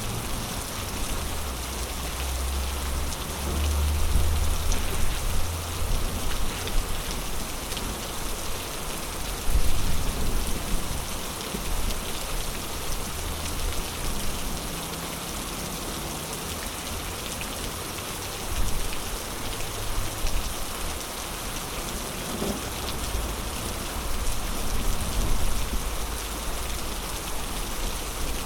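Heavy rain pouring steadily in a storm, a dense even hiss with a low rumble that swells a few seconds in.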